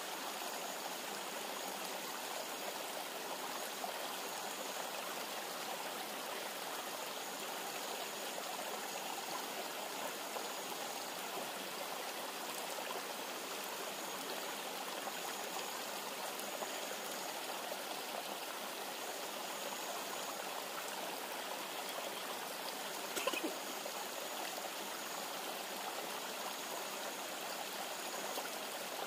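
Steady rush of a river flowing close by, with a faint high whine that comes and goes. There is one short click about 23 seconds in.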